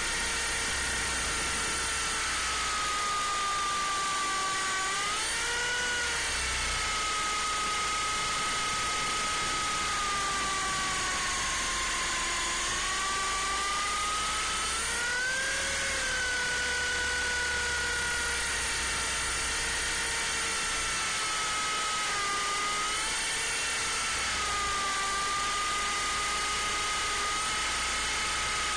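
MJX F45 RC helicopter's electric motor and rotor whining up close from its on-board camera, the pitch dipping and rising several times as it flies, over a steady hiss.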